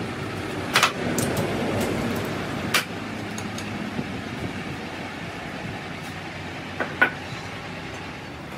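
Sharp metal clanks and clicks as a steel camshaft is taken out of a lathe chuck and handled, a few strikes spread over several seconds with the loudest about a second in and around seven seconds, over a steady mechanical hum.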